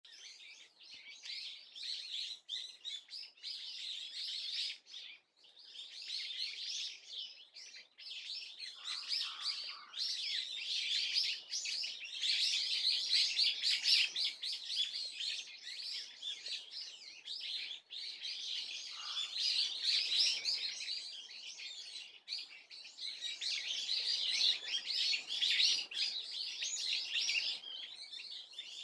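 Small birds twittering in long, rapid runs of high chirps with brief pauses; the uploader wonders whether these are swallows.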